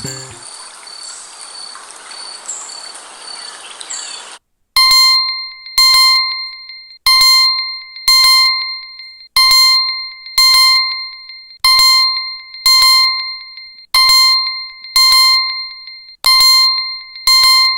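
Xiaomi smartphone alert tones: for about four seconds a hissy tone with faint chirps, which stops suddenly, then from about five seconds in a loud bell-like ring repeating about once a second, each ring a quick double strike that dies away.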